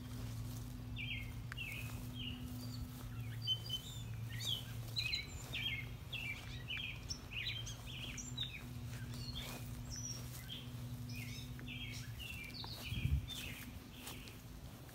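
Small birds chirping in many short, quick notes, over a steady low hum that stops about twelve seconds in.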